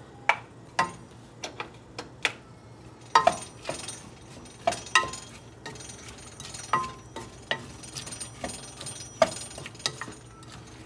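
A wooden spoon knocking and scraping against a stainless steel saucepan as chopped onion is tipped in from a glass bowl and stirred in hot oil. There are a dozen or so irregular knocks, the loudest about three seconds in and near the end, and a faint sizzle from about three seconds in.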